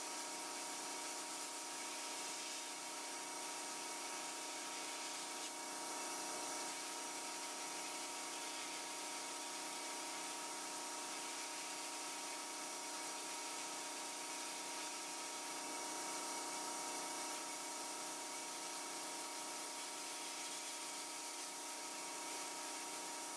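Blast cabinet gun blasting abrasive against a rusty painted sheet-steel part: a steady, even hiss as the rust and paint are stripped to bare metal, over a few constant mechanical tones.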